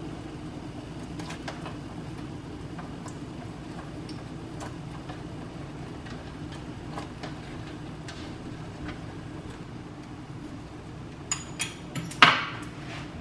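A steady low hum, then near the end a few light clicks and one sharp, ringing clink of a metal spoon against a glass salt jar.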